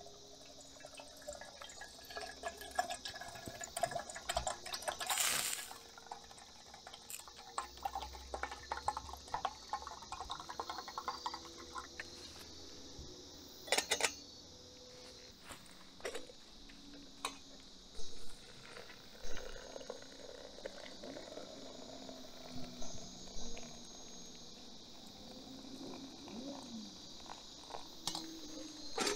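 Water poured from a plastic jug into a small metal camp kettle for several seconds, then a few sharp metal knocks as the kettle is handled, over a steady chorus of crickets.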